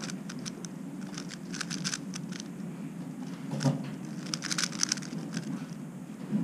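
MoYu Weilong WR M 3x3 speedcube being turned in quick runs during a blindfolded solve: bursts of fast, light plastic clicking with short pauses between them. A single knock about three and a half seconds in.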